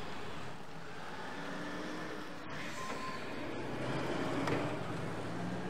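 Road traffic noise, steady, with a vehicle passing and growing louder about four seconds in.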